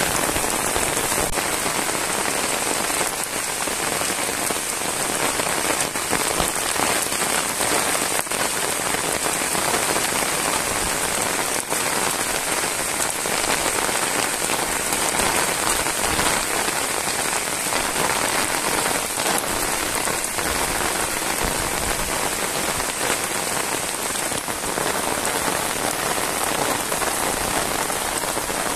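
Heavy rain falling steadily on a wet paved road and roadside grass, a dense, even hiss with a few sharper drop hits.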